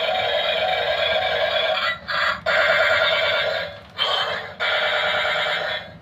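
Battery-powered toy remote-control tank's built-in speaker playing a warbling, alarm-like electronic sound effect. It cuts out briefly about two seconds in, again around four seconds, and just before the end.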